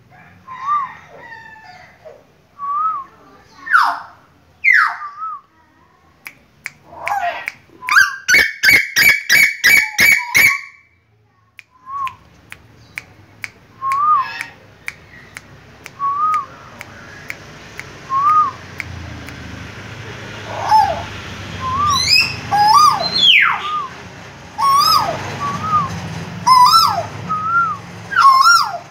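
Female Asian koel calling: short sharp notes, with a rapid run of about a dozen loud repeated calls about eight seconds in. Repeated short rising-and-falling whistled notes come every second or two, over a steady hiss in the second half.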